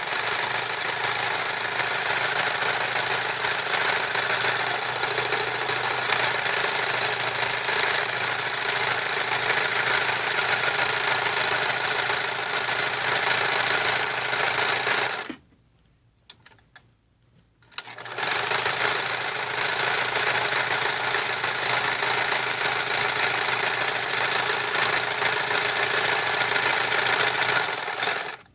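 MORSE Model 5401 stretch-stitch sewing machine running steadily as it stitches. It stops for a couple of seconds about halfway, then runs again until just before the end.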